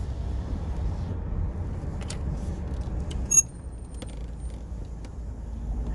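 Low rumble of a car rolling slowly, heard from inside the cabin. About halfway through comes a short electronic beep from the drive-through order speaker box, and the rumble then drops as the car comes to a stop.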